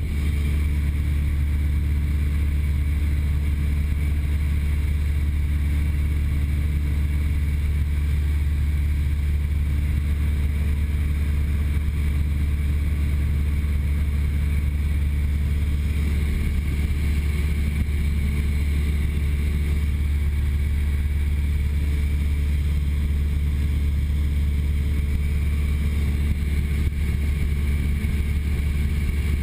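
Cessna 172's piston engine and propeller running at steady cruise power, heard from inside the cabin as a constant low drone.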